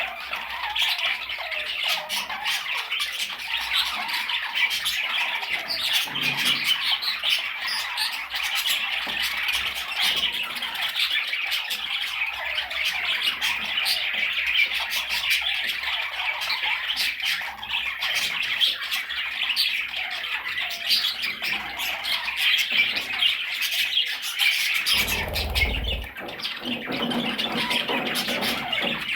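Several budgerigars chattering and squawking continuously, a dense warble of overlapping calls. A brief low thump comes near the end.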